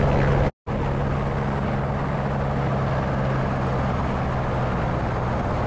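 Airbus H125 helicopter running with a steady hum for about half a second, then cut off abruptly; after the break a steady rushing noise continues, with a fainter hum that fades away.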